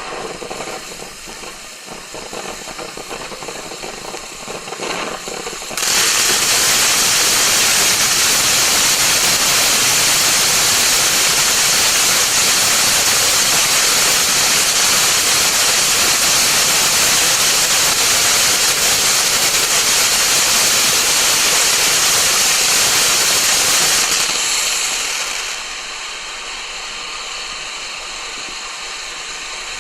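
Winda P3088 Snow Cone firework fountain burning with a loud, steady hiss of spraying sparks. It starts suddenly about six seconds in, after quieter crackling. After about eighteen seconds it drops to a softer hiss, which begins to build again near the end.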